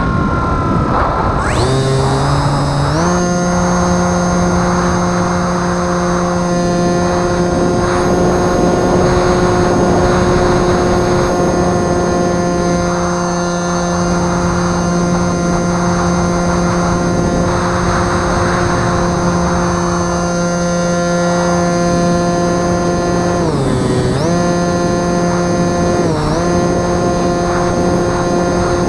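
Bixler 2 RC plane's brushless electric motor and propeller whining steadily. The pitch steps up about two seconds in as the throttle opens, and dips briefly twice near the end as it is eased back. Wind rushes over the microphone underneath.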